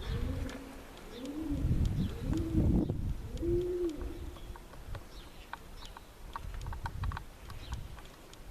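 A pigeon cooing: a phrase of about four low, soft coos in the first four seconds, then it falls quiet.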